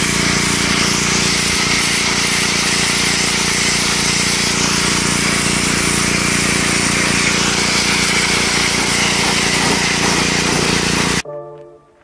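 Electric pressure washer running at full pressure: a steady motor hum under a loud, even hiss of water spray. It cuts off abruptly about eleven seconds in.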